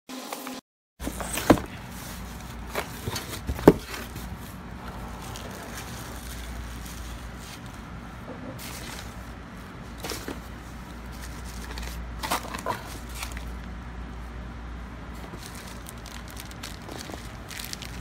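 Cardboard shipping box being opened and its packing handled: a couple of sharp knocks from the box in the first few seconds, then scattered crinkling and rustling of bubble wrap, paper and plastic zip bags, over a steady low hum.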